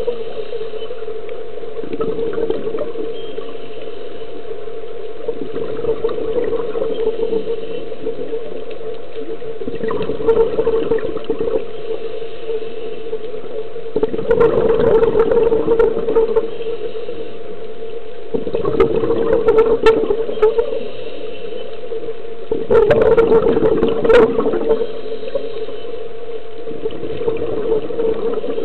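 Scuba diver breathing through a regulator underwater: a gush of exhaled bubbles about every four seconds, each lasting a second or two, over a steady hum.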